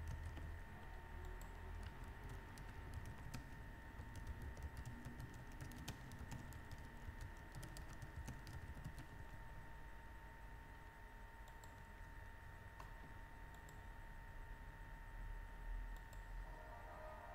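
Faint typing on a computer keyboard: irregular key clicks, thinning out after about nine seconds, over a faint steady whine.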